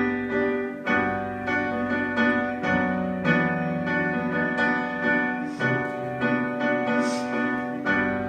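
Piano playing steady repeated chords in an instrumental passage of a pop ballad.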